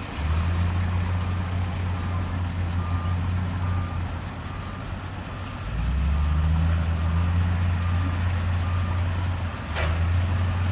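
Heavy diesel earthmoving machine running with a reversing alarm beeping steadily, about two beeps a second. The engine eases off partway through and comes back up, with a brief sharp noise near the end.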